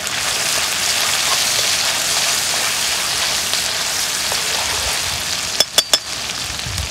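Food sizzling as it fries in hot oil in a pan, a steady hiss. Three sharp clicks come close together near the end.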